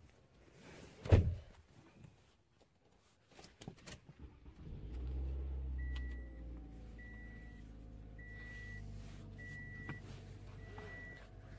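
A car door shuts with a thunk about a second in. Almost five seconds in, the car's engine starts and settles into a steady idle, heard from inside the cabin, while a dashboard warning chime beeps five times, about once every second and a bit.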